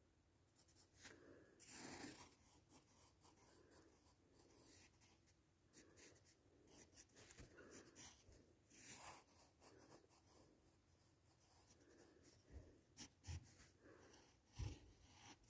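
Pencil scratching faintly on paper in short, irregular strokes as a drawing is sketched, with a few soft knocks near the end.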